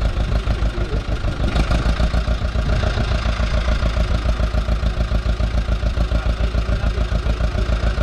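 Engine idling steadily close by, a rapid, even throb with its weight low down.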